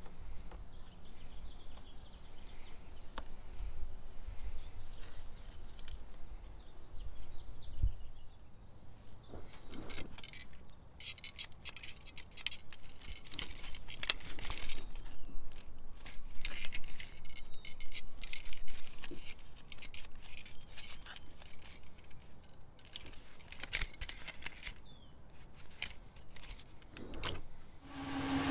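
Nitrile-gloved hands handling sticky goo and a plastic toy RC car: scattered clicks, rattles and crinkly rustling, busiest in the middle stretch. A few faint bird chirps come about three to five seconds in.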